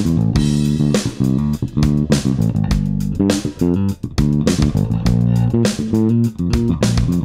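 Electric bass played fingerstyle: a quick sixteenth-note bass line of short plucked notes mixed with muted, percussive ghost notes.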